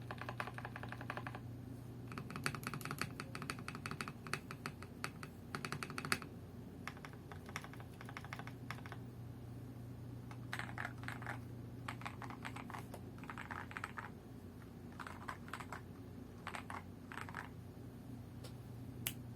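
Typing on a Dark Alien K710 mechanical keyboard with linear KTT Kang White switches and PBT XDA-profile keycaps: rapid keystroke clatter in bursts of a second or so, broken by short pauses, ending in a single keypress. A steady low hum lies under it.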